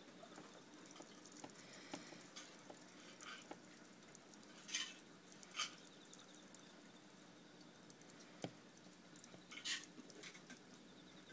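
Near silence broken by faint scattered clicks and light scrapes, with a few short, higher rustles about halfway through and again near the end.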